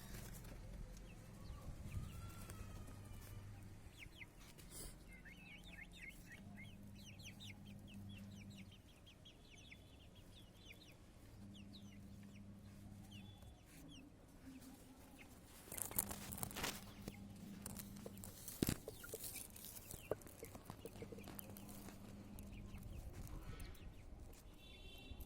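Chickens clucking, with rapid high cheeping from chicks and a few sharp knocks in the second half.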